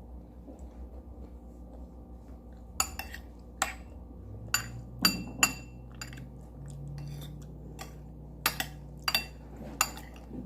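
Cutlery clinking against a dish while eating: about eight sharp, ringing clinks, some in quick pairs, starting a few seconds in.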